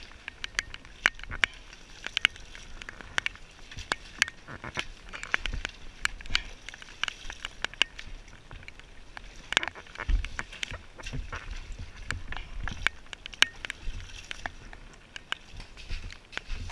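A pickaxe and shovels digging into waterlogged, muddy soil: irregular sharp knocks and scrapes, several a second, with a few dull thuds.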